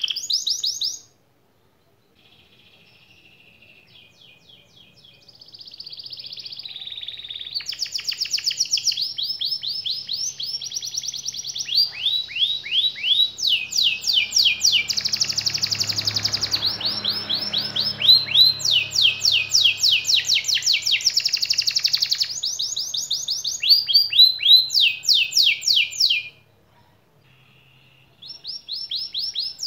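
Domestic canary singing: fast rolling trills of rapidly repeated high notes, joined into a long continuous song. A short phrase is cut off about a second in. The song then starts softly and builds into loud rolls, stops briefly near the end, and resumes.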